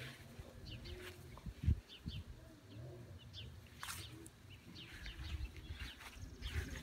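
Small birds chirping: short, high chirps scattered throughout, over a low outdoor rumble. There is one dull thump about a second and a half in.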